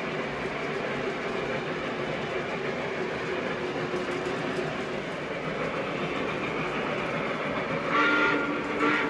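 O-gauge model train running on its track with a steady rumble, sounding two short toots of its whistle near the end.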